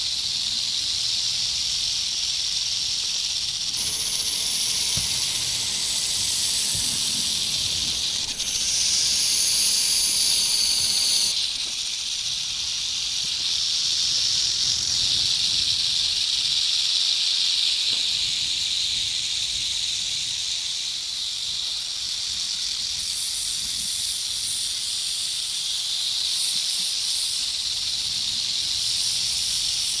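Snakes hissing, a continuous layered hiss. A sharper, brighter hiss joins about four seconds in, grows louder, and cuts off abruptly just before the midpoint, then comes back near the end.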